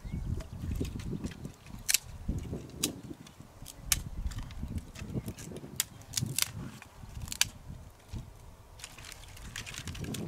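A small hatchet chopping dry deadwood branches: a series of sharp, irregular cracks and chops, some in quick pairs, with pauses of a second or so between.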